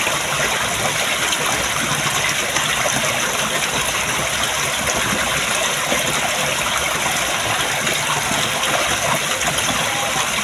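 Water running steadily through a small concrete drainage ditch, an even, continuous rush of flowing water.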